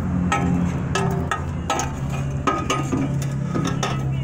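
Irregular metal clinks and knocks as a steel transmission crossmember and mount are handled and fitted under a car, over a steady low hum.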